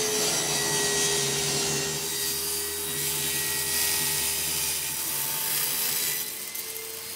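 Table saw crosscutting a plywood panel on a sled, the blade hissing through the wood. The cutting noise stops about six seconds in, leaving a steady running hum.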